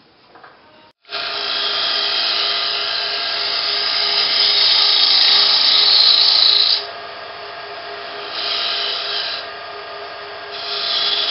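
Bowl gouge cutting the inside of a wooden bowl spinning on a lathe: a hissing scrape over the lathe's steady hum. It starts abruptly about a second in, is loudest around the middle, then eases and picks up again in two shorter passes.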